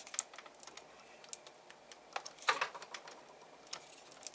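Scattered small plastic clicks and taps, with a short scrape about two and a half seconds in: a PLA 3D print being handled and pried at where it is stuck fast to the printer bed.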